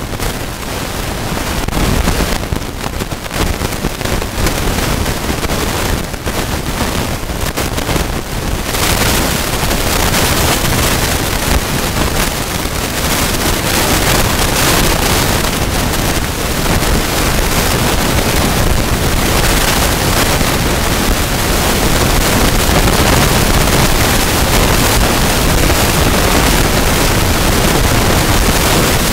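Wind buffeting the camera microphone: a loud, steady rushing noise with a heavy low rumble that thickens about nine seconds in.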